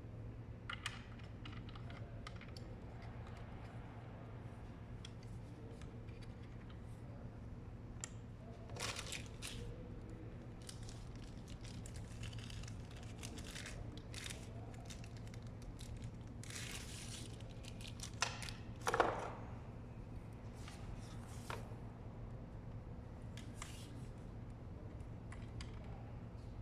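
Packaging being handled and unwrapped: scattered rustling, crinkling and clicks, the loudest bursts about two-thirds of the way in, over a steady low hum.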